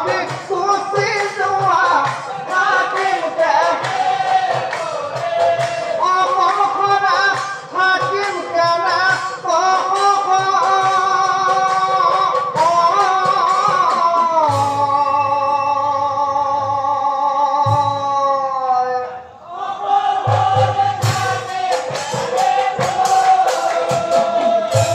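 Amplified devotional group singing: a male lead singer with a chorus of men, kept in time by small hand cymbals. About halfway through the voices hold one long wavering note over low drum strokes, break off briefly, then the singing starts again.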